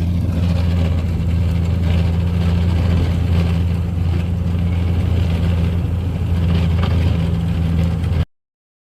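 Farm tractor engine running steadily as it pulls a manure spreader, a low, even drone that cuts off suddenly near the end.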